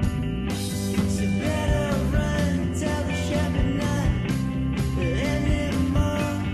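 Background music: a rock song with guitar, drums and a singing voice.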